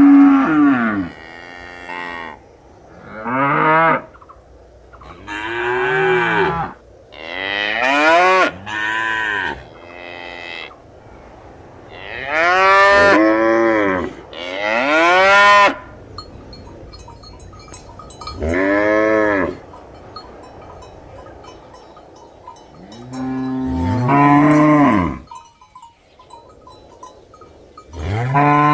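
Cows mooing over and over, about a dozen moos of one to two seconds each. Each moo rises and then falls in pitch, and some follow one another in quick succession.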